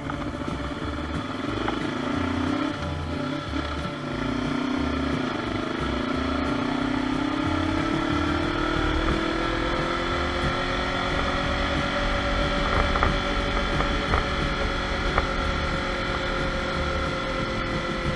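Kawasaki KLE400 motorcycle's parallel-twin engine under way: the revs dip and rise a couple of times over the first few seconds, then climb steadily for several seconds and hold.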